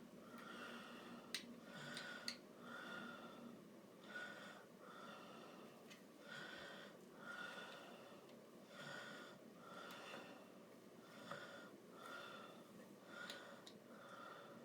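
Faint nasal breathing close to the microphone, soft puffs in and out about every three-quarters of a second. Two small sharp clicks come near the start.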